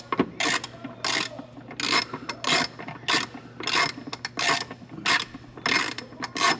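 Socket ratchet on a 10mm socket and extension turning out intake manifold bolts: quick back-and-forth ratcheting strokes, about two or three a second, each a short burst of clicking.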